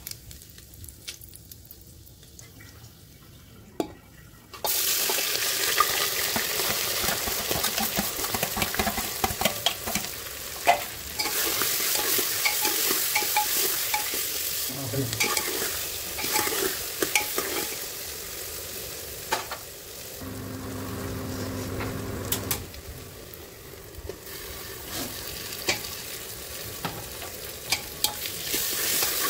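Food sizzling in hot oil in a pan, with the clicks and scrapes of a spoon stirring it. The sizzle starts suddenly about four and a half seconds in, after a quiet start with a few clicks.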